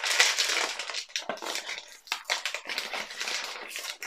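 Blind-box packaging being opened by hand: a small cardboard box being worked open and a plastic wrapper crinkling, a dense run of crackles and rustles.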